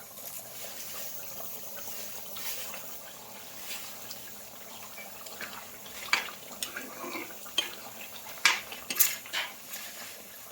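Pork curry cooking in a pot, a steady hiss, with a metal utensil clinking and knocking against the pot; the knocks come more often and sharper in the second half.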